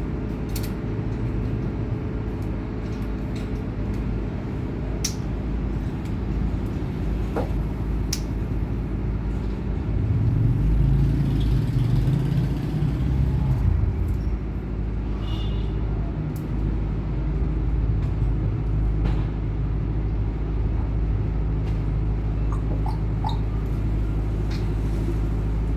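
Steady low mechanical rumble, like a running engine or motor, swelling louder about ten to fourteen seconds in, with a few faint short high chirps or clicks over it.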